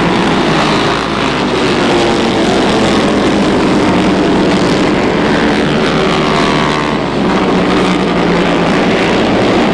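Several vintage 1970s flat-track racing motorcycles running hard around the track, their engines overlapping, with one engine's note dropping in pitch around the middle.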